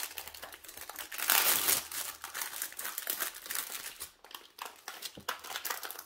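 Thin clear plastic bag crinkling as it is slid off a rolled canvas and handled, loudest about a second in.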